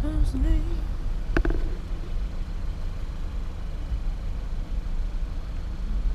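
Steady low rumble of a car driving slowly, heard from inside the cabin, with a brief wavering tone just after the start and a short sharp knock about a second and a half in.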